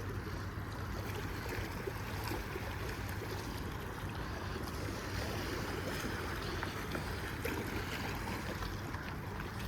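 A steady, even rushing noise with a few faint ticks.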